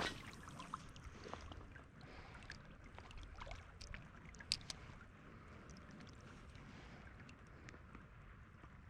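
Faint creek water flowing and lapping, with a few light clicks scattered through it and one sharper click about four and a half seconds in.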